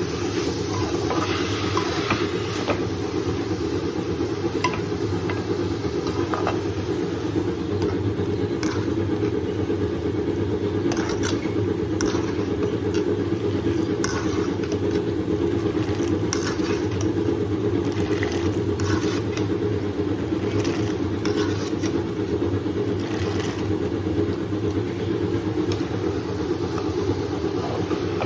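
Steady low motor hum with scattered light clicks and taps.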